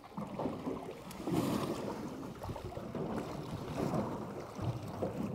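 Choppy water slapping and sloshing irregularly against the aluminium hull of a plate-aluminium boat rocking at anchor.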